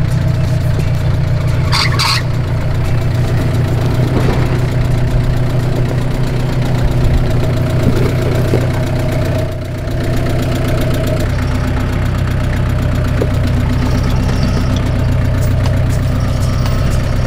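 Toyota Hilux diesel engine running steadily at low revs as the ute crawls over steep, rocky ground. A brief high squeak comes about two seconds in.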